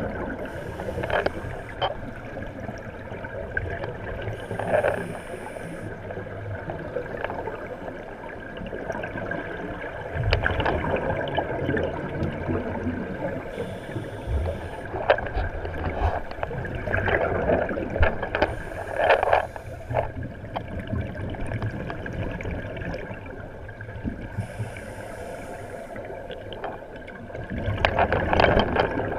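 Underwater sound of scuba diving: divers' regulators releasing exhaled air bubbles in gurgling bursts every few seconds, over a steady underwater hum.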